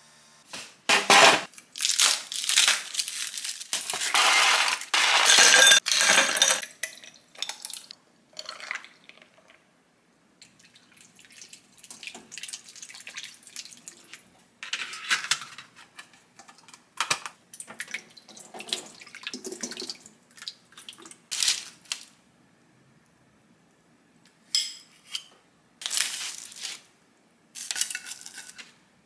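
A run of kitchen handling sounds: water being poured, including into a plastic ice cube tray, and dishes and glassware being set down and moved. These come as short noisy bursts, with a dense, loud stretch in the first few seconds and quieter gaps later.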